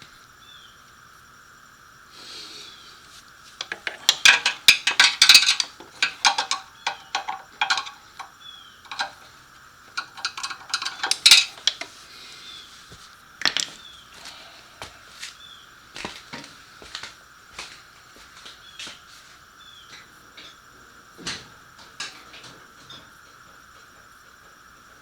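Metal hand tools clinking and rattling in two busy runs of clicks, then single scattered clicks and taps, over a steady faint hum.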